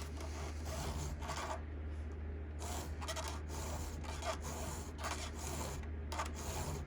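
Hand file rasping across the cutters of a chainsaw chain during sharpening, short strokes about two to three a second with a brief pause about two seconds in. A low steady hum runs underneath.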